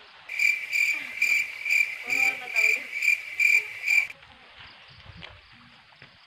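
Cricket-chirp sound effect: a high chirp repeated about twice a second, nine times, that starts and stops abruptly.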